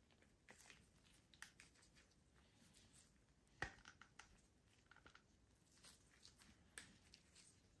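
Faint plastic clicks and rubbing as an Ork Meganob action figure is handled and its parts are fitted, in nitrile-gloved hands. One sharper click comes a little under halfway through, another near the end.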